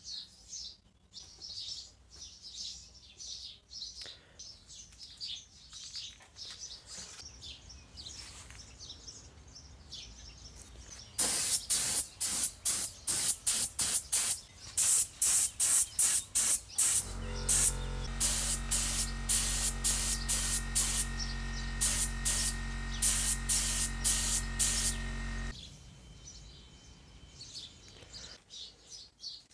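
Birds chirping, then a compressed-air paint spray gun hissing in many short, rapid bursts. Partway through the spraying, a steady low motor hum joins for about eight seconds and then stops, and the birdsong carries on alone near the end.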